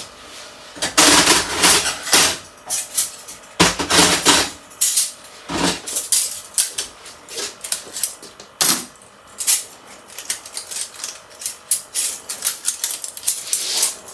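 Metal cutlery clinking and clattering as spoons and other utensils are sorted into a wire cutlery organizer in a drawer: many short clicks, with two longer, louder scraping noises about a second in and about four seconds in.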